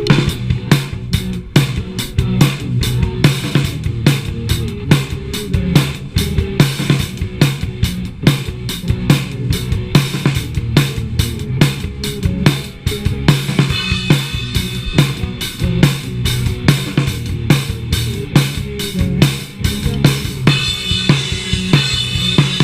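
A band playing live: a drum kit keeps a steady beat on bass drum and snare over sustained guitar and bass notes, picked up by a small action-camera microphone.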